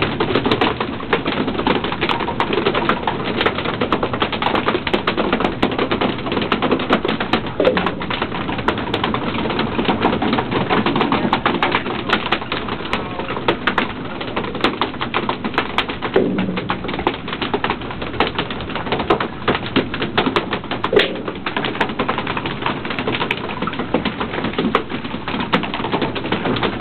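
Albacore tuna landed on deck beating their tails against the boards in a rapid, irregular clatter, over the wash of splashing sea water.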